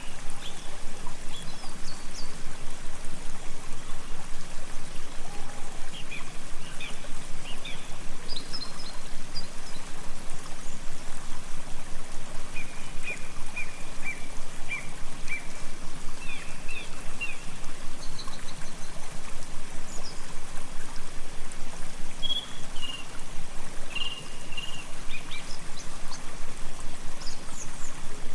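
Steady rushing and trickling water that pulses in quick, even beats, with small birds chirping over it now and then.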